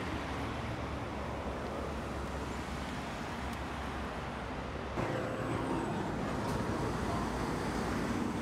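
Motorway traffic noise: a steady rush of road vehicles with a low engine hum, changing abruptly about five seconds in.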